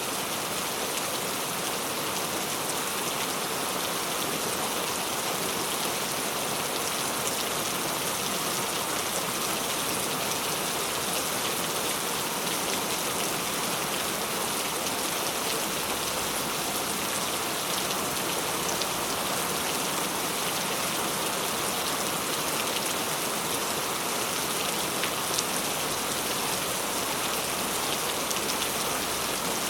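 Steady rain falling, an even hiss with scattered small drop ticks and no change in strength.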